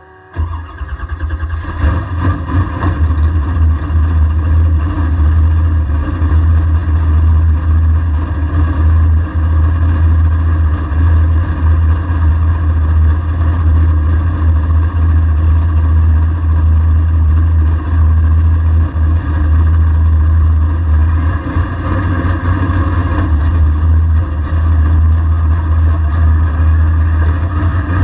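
A race-built LSX V8 in a drag-prepped Camaro fires up and settles into a loud, choppy idle as it pulls slowly forward. It is heard from inside the stripped cabin.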